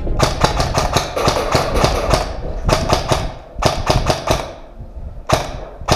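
Airsoft rifle firing rapid shots, about six a second, in three strings with short pauses and a last short string near the end.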